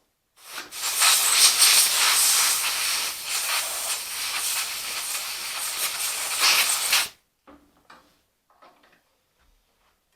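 Long, loud hiss of pressurised spray blasted into a 1969 Rokon carburetor's fuel inlet to clean it out. It starts about half a second in, swells briefly louder near the end and cuts off suddenly about seven seconds in.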